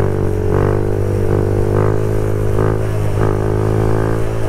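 Kawasaki Z125 Pro's single-cylinder four-stroke engine, fitted with an aftermarket full exhaust, running at steady revs under way as a continuous drone.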